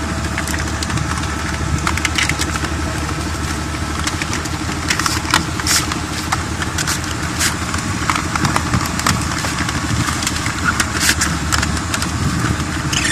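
Butt fusion machine's facing tool running between the ends of two 630 mm HDPE pipes, its blades shaving both pipe faces square before heating. It makes a steady motor hum under many short scraping ticks.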